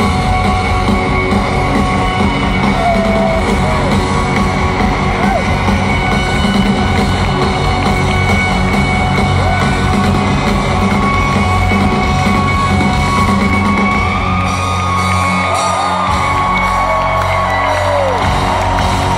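Rock band playing live in a large arena, heard from among the audience, with voices singing and yelling along. The deepest bass drops away for a moment about fourteen seconds in, then returns.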